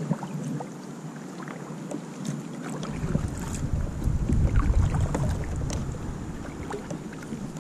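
Wind buffeting the microphone: a low rumble that comes in about three seconds in and is strongest near the middle. Under it, scattered small clicks and knocks from a small kayak on the water.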